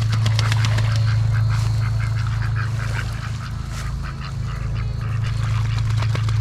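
Birds calling in quick, repeated bursts, like a flock of waterfowl, over a steady low hum.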